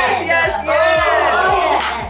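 Children and adults cheering and shouting excitedly together, over upbeat background music with a steady beat of about two kicks a second.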